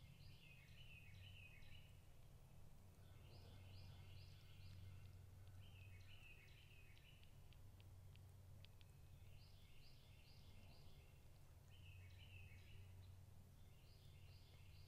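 Faint outdoor chorus of short, rapidly repeated chirping calls in bursts about every three seconds, some overlapping, over a low steady hum.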